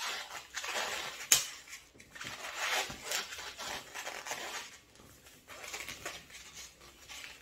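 Latex modelling balloons rubbing against each other as hands twist and handle them, in irregular short bursts of noise, with one sharp snap about a second in.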